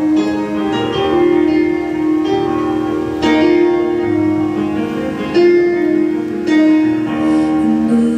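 Live band music: keyboard chords with plucked acoustic guitar, a slow song's notes held and changing every second or so.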